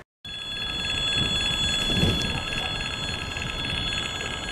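Level-crossing warning bell ringing continuously, a steady high ringing that begins abruptly after a moment of silence at the start.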